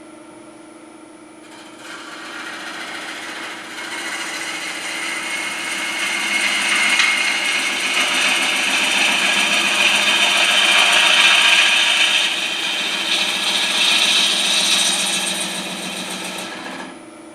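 Turning gouge cutting the outside of a spinning wet hard maple bowl blank, a rushing scraping noise that starts about a second and a half in, swells and falls away shortly before the end. Under it the lathe's motor hums steadily.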